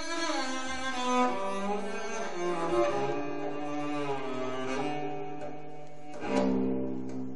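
Cello playing a melody with gliding notes over low sustained strings, with a strong accented stroke about six seconds in: orchestral film music played back from a vinyl record through hi-fi loudspeakers.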